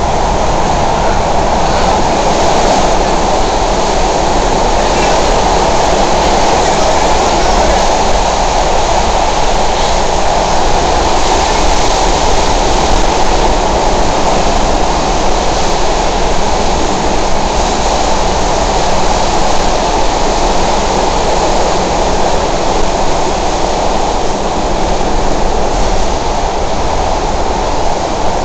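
Steady, loud running noise of a SEPTA Broad Street Line subway train, heard from inside the car as it runs along the track.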